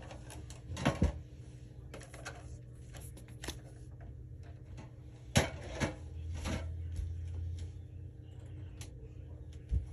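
Trading cards and their plastic packaging being handled on a playmat: scattered clicks and taps, the loudest about five and a half seconds in, over a low steady hum.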